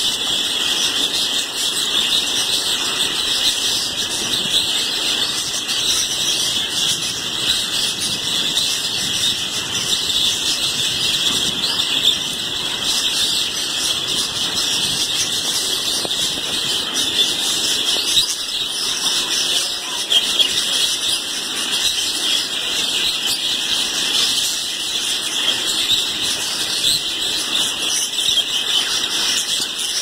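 Many budgerigars chattering together in continuous, high-pitched chirping.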